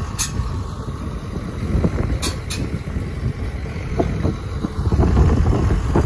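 John Deere farm tractor's diesel engine running under load as its front-loader bucket pushes a steel fence panel into the ground, with wind buffeting the microphone. A few short sharp clicks come through, about a quarter of a second in and twice around two seconds in.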